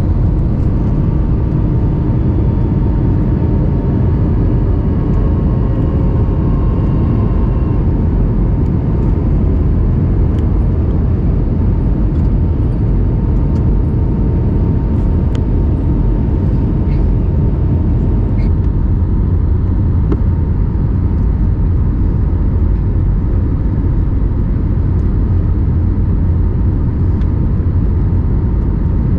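Steady in-flight cabin noise of an Airbus A321neo, heard from a window seat over the wing as the airliner descends: a dense, even roar of airflow and engines, with a faint steady whine.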